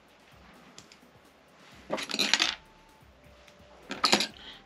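Clatter of small hard objects being picked up and set down on a work surface: a rattle lasting over half a second about two seconds in, and a shorter one about four seconds in.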